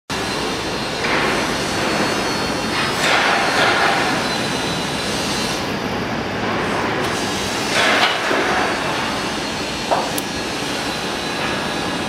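Building-site din: a steady rumble of machinery with several louder knocks, about a second in, around three seconds in and near eight seconds, and a short sharp bang near ten seconds.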